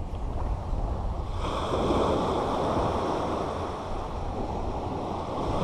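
Small surf breaking and washing up a sandy beach in a steady wash, swelling a little about one and a half seconds in, with wind buffeting the microphone.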